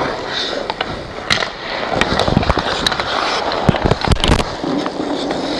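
Ice hockey skate blades scraping and carving on the ice, with scattered sharp clacks of sticks and puck, heard through a camera inside a goalie's mask. A louder scraping burst comes about four seconds in.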